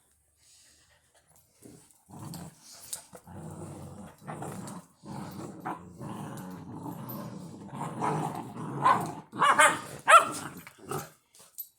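Labrador puppies play-fighting: long rough growls from about two seconds in, rising to several louder, sharp barks in the last few seconds.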